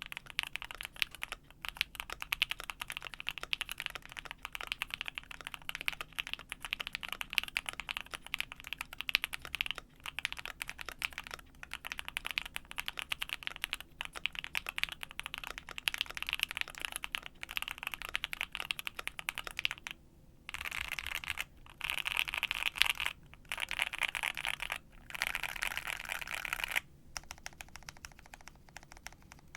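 Fast, continuous typing on a gasket-mounted Vega 65 mechanical keyboard with lubed JWK Halu Halo linear switches and an aluminium plate. The typing breaks off in a few short pauses and is quieter near the end.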